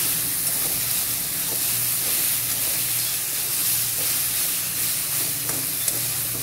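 Chopped ridge gourd frying in a metal kadai, sizzling steadily while a flat metal spatula stirs and scrapes through the pieces, with a few light taps of the spatula on the pan.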